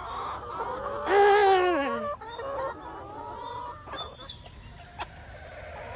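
Backyard chickens clucking, with one loud drawn-out call about a second in that drops in pitch as it ends, followed by softer calls.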